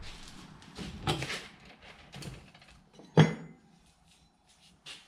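Light metallic clinks and knocks of metal being handled, with one sharp clank about three seconds in, after which it goes quiet.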